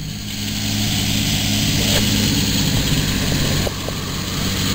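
A vehicle engine running steadily at idle, a low even hum with a hiss over it that eases slightly near the end.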